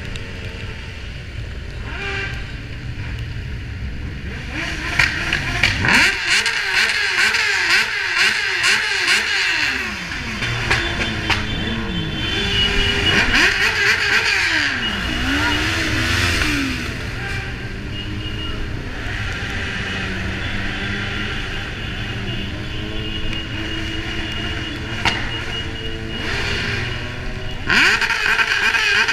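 Motorcycle engines running and revving, their pitch rising and falling several times as the bikes accelerate and ease off, over a steady low rumble.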